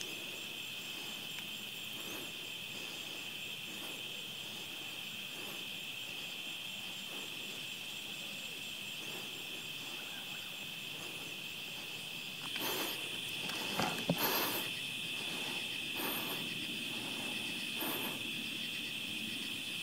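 Steady high-pitched chorus of night insects. Several brief rustles break in from about twelve seconds on.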